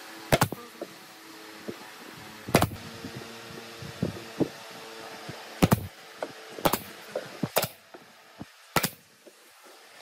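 Pneumatic F30 brad nailer firing brads into pine birdhouse trim: six sharp shots at uneven intervals, over a low steady hum.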